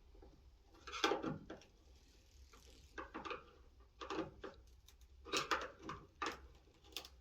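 Door hardware being worked in a wooden door: a string of separate knocks and clunks, roughly one a second, loudest about five and a half seconds in.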